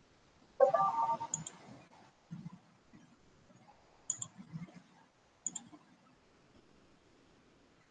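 Computer mouse clicks: three quick double-clicks spread over several seconds. About half a second in there is a brief, louder sound with a few pitched tones, and a few faint low knocks come between the clicks.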